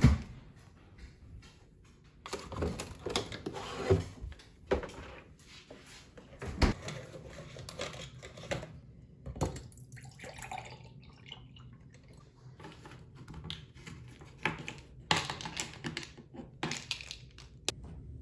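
Kitchen handling sounds: a tall kitchen door pulled open with a knock at the start, then scattered knocks and clatters of a glass and a juice carton on a marble worktop, and juice poured from the carton into a glass about ten seconds in.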